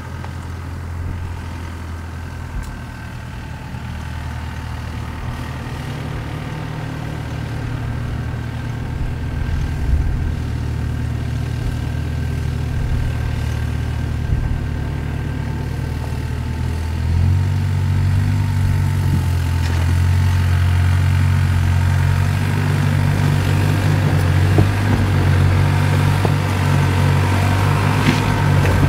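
2024 Toyota Land Cruiser's engine running at low, steady revs as the SUV crawls over rocks, growing gradually louder and stepping up in pitch and level about 17 seconds in. A few light knocks of tyres on stones.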